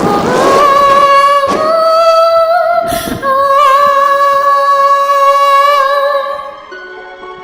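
A woman singing unaccompanied, holding the long closing notes of a song with a wavering vibrato. The singing stops about six and a half seconds in.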